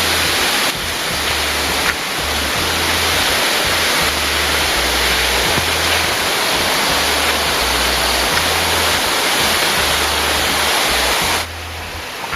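Waterfall rushing loudly and steadily, with background music underneath. The level shifts abruptly a few times.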